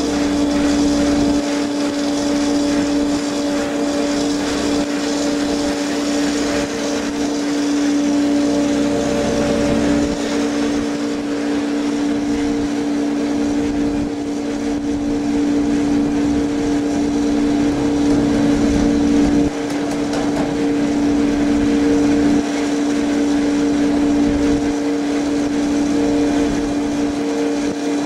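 Walinga Ultra-Lite bulk feed trailer's High Output Auger unloading system running under load: a steady mechanical drone with a constant whine.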